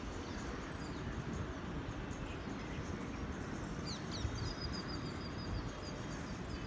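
Outdoor city ambience: a steady low hum of background noise with birds chirping. About four seconds in, a bird gives a quick run of short, high chirps, about four a second.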